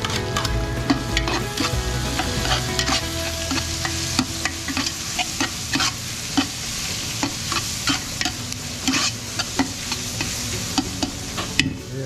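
Garlic, chili, ginger and onions sizzling as they fry in a large metal pot, while a metal spoon stirs them and clinks against the pot many times at an uneven pace.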